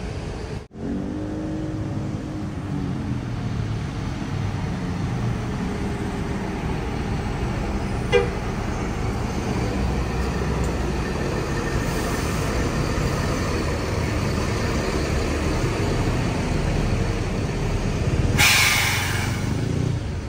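Large tour bus diesel engine running at close range, with a single short horn toot about 8 seconds in. Near the end there is a loud burst of air hiss lasting about a second.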